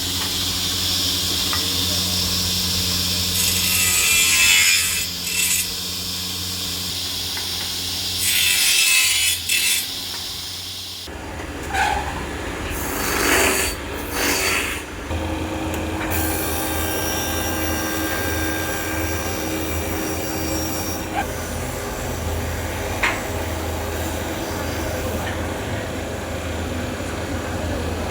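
Woodworking machinery running with a steady motor hum while wood is cut and shaped, the blade or cutter rasping against the wooden shuttle blank in several spells of a few seconds each.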